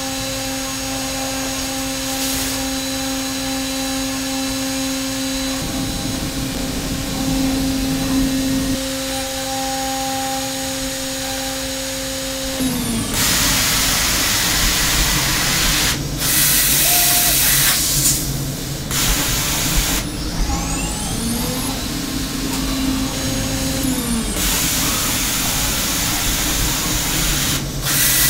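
Hermle C400 CNC milling machine. For the first half its spindle runs at 16,000 rpm with a steady whine while a three-flute carbide end mill dry-cuts aluminium. About halfway through, the spindle winds down and loud blasts of hissing air come on and off with the machine's moves during a tool change.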